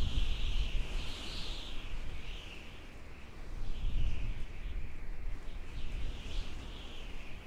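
Desert wind howling in gusts: a high, wavering whistle-like hiss over a low rumble of wind buffeting, both swelling and easing every second or two.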